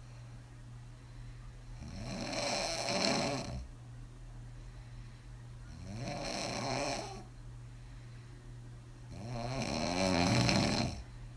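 A woman snoring hard on her back with her mouth open, after several drinks: three loud snores, each about one to two seconds long and roughly four seconds apart.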